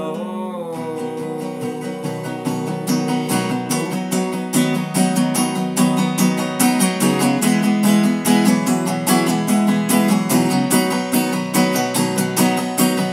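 Acoustic guitar strumming chords in a steady rhythm through an instrumental break in a folk song, after a last sung "no" at the very start.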